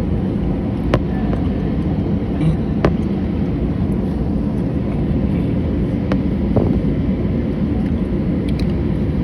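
Steady low rumble in the cabin of an Airbus A319 taxiing on the ground, with a few light knocks.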